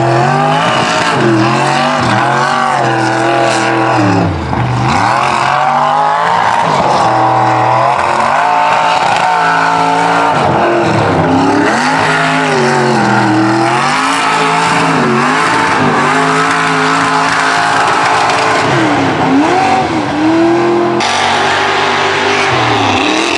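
Lifted mud trucks' engines revving hard, the pitch climbing and dropping again and again every second or two. The engine sound changes abruptly about two seconds before the end.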